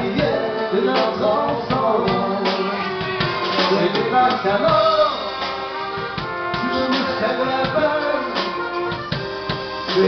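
Live band music: a drum kit keeps a steady beat under guitar and other instruments, with a voice singing over it.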